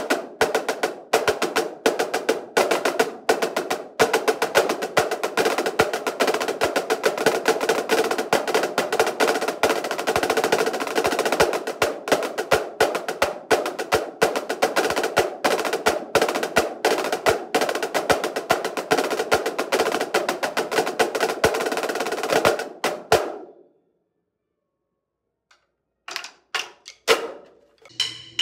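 Two marching snare drums played together in fast strokes through a flam exercise, each stroke ringing. The playing stops abruptly about 23 seconds in, and a few scattered strokes follow near the end.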